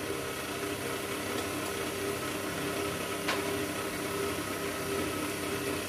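Electric stand mixer running steadily as it beats pancake batter, a continuous motor hum, with one light click about three seconds in.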